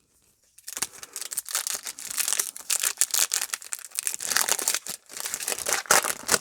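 Plastic wrapper of a Topps Chrome baseball card pack crinkling and tearing as it is opened by hand, starting about half a second in.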